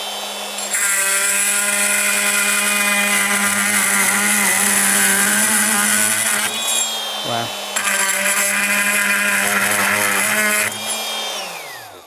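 Fein oscillating multi-tool running at its slowest speed with a metal-cutting blade, buzzing as it grinds through a hardened steel screw. Then, after a short break in the cutting about seven seconds in, it grinds through a nail. Near the end the motor winds down with a falling pitch.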